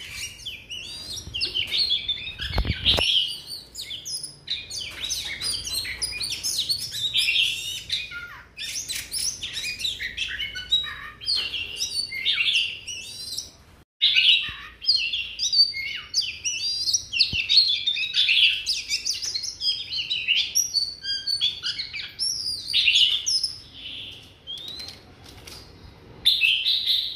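Caged Oriental magpie-robin singing a long, nearly unbroken run of quick, varied phrases, with a single low knock about three seconds in.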